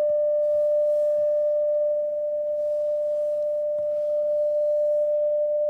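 Steady, unbroken beat tone from an unmodulated carrier, heard through a Yaesu FTdx5000 transceiver's receiver audio: a station tuning up on the CW frequency, covering the weak CW signal the operator is trying to copy.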